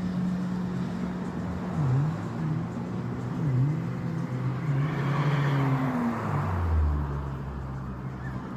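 Road traffic: a car passes, swelling and fading about five seconds in, over a steady low hum.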